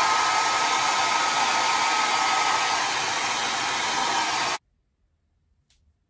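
Handheld hair dryer blowing at the wig cap: a steady rush of air with a whine from its motor, switched off abruptly about four and a half seconds in.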